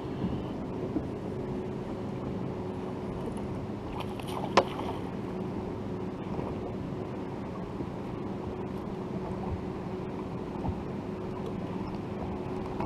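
Steady hum from the fishing boat's motor, with one sharp knock about four and a half seconds in.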